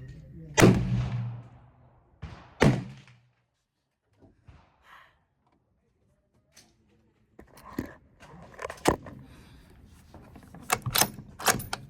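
Two rifle shots about two seconds apart, each a sharp crack followed by an echoing tail, the first the louder. Later comes a run of quieter sharp clicks and knocks.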